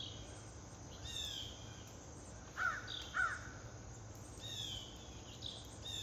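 Wild backyard birds calling: short high down-slurred whistled notes repeated about once a second, and two louder, lower calls about half a second apart near the middle.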